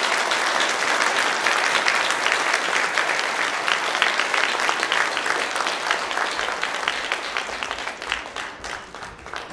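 Audience applauding: dense, steady clapping that slowly fades over the last few seconds.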